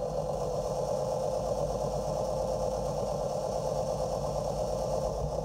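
Small electric motor of an HO-scale model locomotive, running steadily with an even whirring hum while it tries to push four coaches with its tender removed, a load it fails to move any better.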